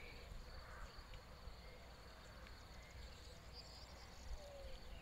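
Near silence: faint outdoor ambience at the water's edge, a low rumble of wind on the microphone with a few faint distant bird calls.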